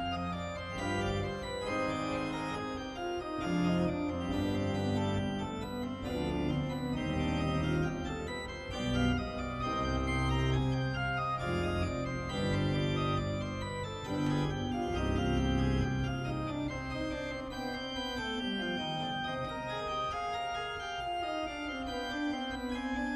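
Two-manual electronic organ with pedals playing sustained chords in the manuals over a bass line that steps steadily downward near the end.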